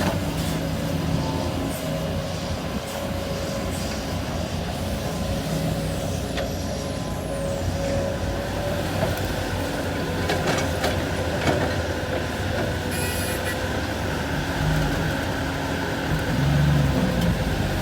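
Hydraulic excavator working with its diesel engine running steadily, a thin whine held above the low drone. A few sharp knocks and clatters come about ten to twelve seconds in.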